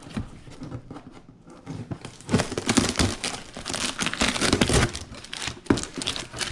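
A cardboard mailing box being opened by hand: a clear plastic bag and the box's cardboard flaps crinkling and rustling. It is light handling at first, then dense, steady crinkling from about two seconds in.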